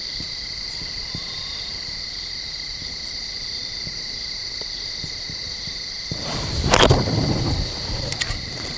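Steady insect chorus of crickets, a continuous high-pitched trill. About six seconds in comes a burst of rustling noise lasting about two seconds, louder than the insects.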